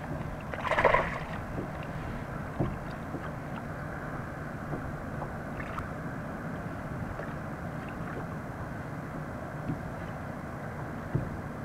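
Water splashing about a second in, then a steady, muffled wash of water with a few faint knocks, heard from a camera dipped under the surface beside a kayak.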